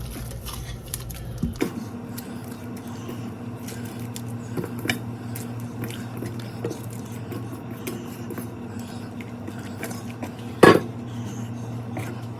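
Kitchen utensils clinking and knocking against a cooking pot and dishes, with scattered light clicks and one loud knock near the end, over a steady low hum.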